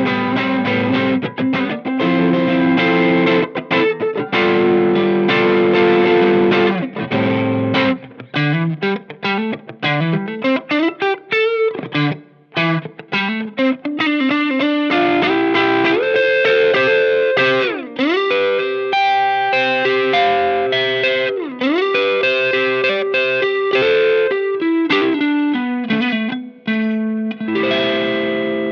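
Electric guitar played through a Cornerstone Antique Classic Drive V2 overdrive pedal, a Tube Screamer-style drive, with mild distortion. It starts with sustained chords, moves to single-note lines with upward slides and two quick dips in pitch, and returns to held chords near the end.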